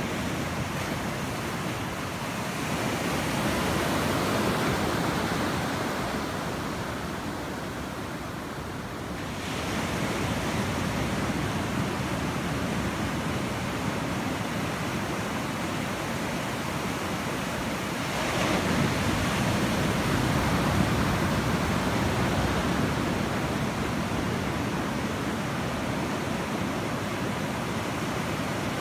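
Ocean surf breaking and washing toward the beach as a steady rushing roar, swelling louder twice as waves come in.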